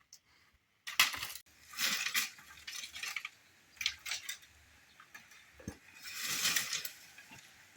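Cooking utensils and pots being handled: a sharp knock about a second in, then irregular clinks and scraping, with a longer scrape near the end.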